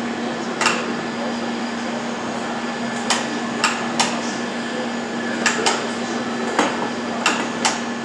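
Assembly-line handling of an aluminium electric-drive housing in a fixture. Sharp clicks and knocks of metal parts and clamps come about nine times at irregular intervals, over a steady low hum.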